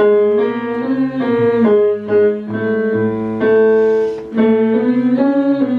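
Electronic keyboard with a piano sound playing a slow sequence of sustained chords over bass notes, changing chord every half second to a second.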